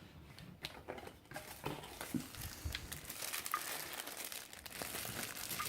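Packaging crinkling and rustling as an item is unwrapped and handled, with scattered crackles that grow busier in the second half.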